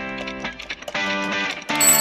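Jingle music with strummed guitar chords; near the end an alarm-clock bell starts ringing over it.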